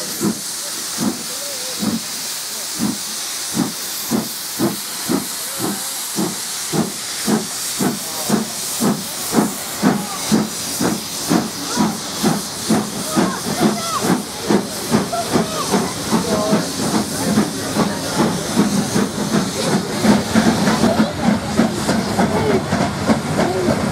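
Two LMS Stanier Class 5 'Black Five' 4-6-0 steam locomotives pulling away with a train, their exhaust beats quickening steadily from under two a second to about three a second over a steady hiss of escaping steam.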